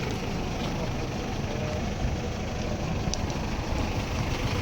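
A vehicle engine running steadily at idle, with a low rumble under general outdoor noise and a brief faint click about three seconds in.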